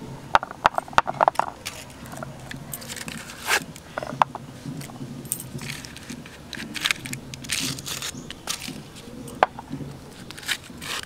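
Aluminium foil crinkling and crackling as it is peeled off the tops of glass tea-glass moulds, with scattered small clicks and knocks of the glasses on the tray.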